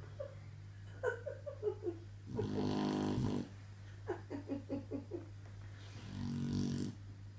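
Sleeping dog snoring: two long rasping snores, each about a second, with short, quick pitched puffs and snuffles in between.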